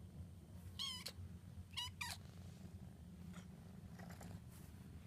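A young kitten squeaking in thin, high-pitched chirps in place of a meow, three clear squeaks about one to two seconds in and fainter ones later, over a steady low purr.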